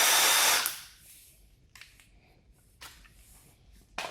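Milwaukee M18 Fuel impact driver running free at max power on its 2.0 Ah battery, a steady high whir that winds down and stops about a second in. A few faint clicks follow.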